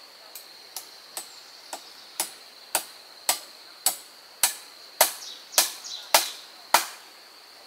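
About thirteen strikes of a hand tool on wood, roughly two a second, growing steadily louder, as in chopping or hammering timber. A steady high insect drone runs behind them.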